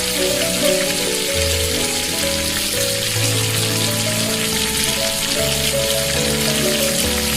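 Background music over a steady sizzling hiss from food cooking in a miniature pan.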